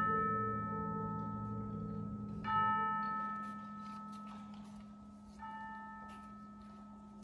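High school mallet percussion ensemble playing a slow, quiet passage: two bell-like struck chords about three seconds apart, each ringing on and fading, over a steady held low note.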